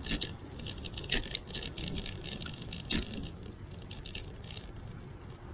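Bicycle rattling as it rides over rough, cracked pavement, over a steady low rumble of tyres and wind, with two sharper knocks from bumps about a second in and near three seconds in.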